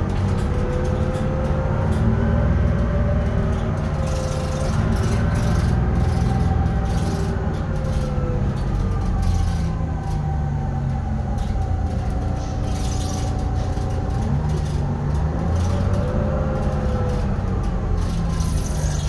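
Detroit Diesel 6V71N two-stroke V6 diesel of a 1982 GM New Look bus, heard from the rear of the passenger cabin, running under way with a steady low rumble. Its pitch climbs at the start, falls off around the middle and climbs again near the end as the bus speeds up and slows.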